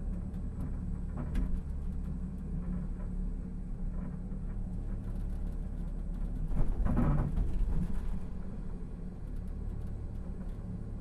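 Busan Blue Line Park sky capsule running along its elevated rail track, heard from inside as a steady low rumble and hum. About six and a half seconds in, a louder rumble swells up for a second or so, then settles.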